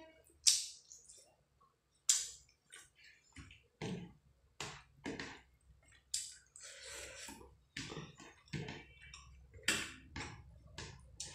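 Eating sounds: irregular wet smacks and clicks of chewing a mouthful of rice and fish curry eaten by hand.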